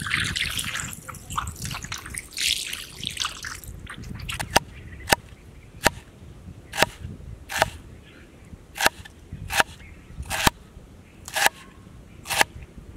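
Water splashing for the first few seconds, then a knife chopping on a cutting board: a steady run of sharp knocks, about one every two-thirds of a second.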